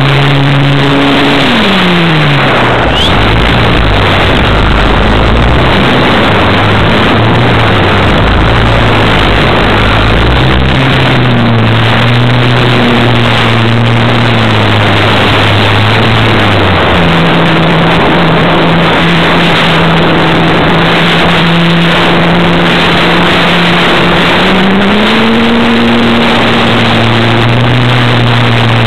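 RC model airplane's motor and propeller heard from the plane's onboard camera, under heavy wind rush. The motor's pitch falls about a second in, climbs again about ten seconds in, drops once more past the midpoint and rises near the end as the throttle changes.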